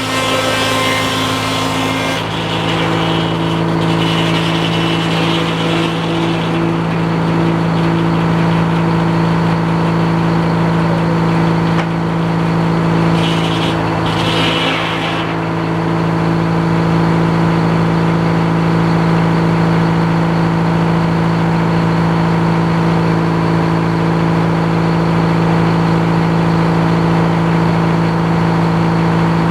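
Sawmill engine running steadily under throttle. A harsher, hissing cutting sound in the first two seconds stops abruptly, and another brief hiss comes through around the middle.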